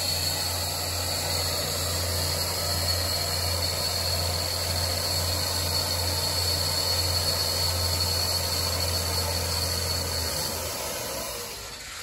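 Cummins N14-C inline-six diesel engine running an Ingersoll Rand 1600 portable air compressor: a steady low drone with a hiss over it. About ten seconds in the drone stops and the sound winds down as the unit shuts off.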